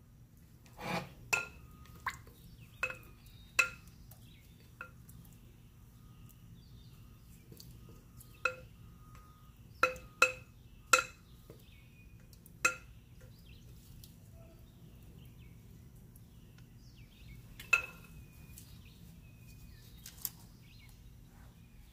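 Sharp metallic clinks of kitchen utensils knocking against a metal baking tray and wire rack while marinade is spooned onto chicken. Each clink rings briefly. They come in a cluster in the first few seconds, a quicker run around the middle, and once more near the end.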